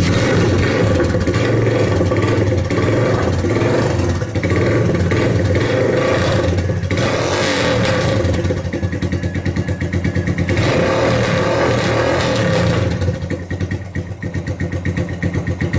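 Motorcycle engine running through an aluminium Roncar silencer whose glass-wool packing has burnt away, so the silencer does almost nothing: the exhaust is really loud. The engine speed rises and falls a few times, then settles into an uneven, pulsing idle near the end.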